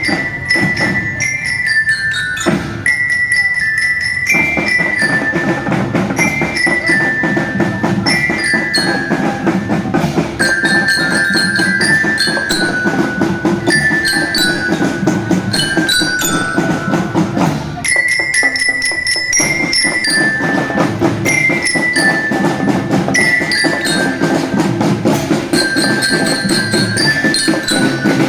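Marching drum band playing: a marching glockenspiel carries a melody of stepping, bell-like notes over snare and bass drums beating a steady rhythm. The drums thin out briefly twice, about two and a half seconds in and again past halfway.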